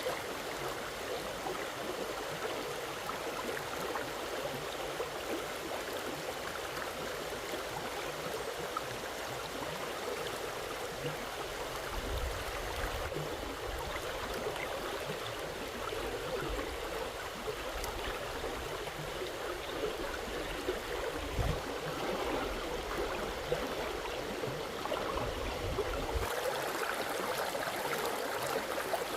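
Water flowing steadily, like a stream, with patches of low rumble through the middle of the stretch.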